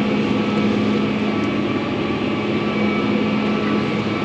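Case IH Magnum tractor's diesel engine running steadily under load while pulling a soil finisher at about 7 mph, heard from inside the cab: a constant drone with a steady low hum.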